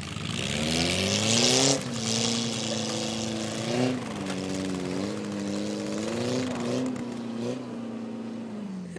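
Car engine revved up and held at high revs, wavering up and down, as a car stuck in snow tries to drive free. A loud hiss sits over the first two seconds, and the revs drop near the end.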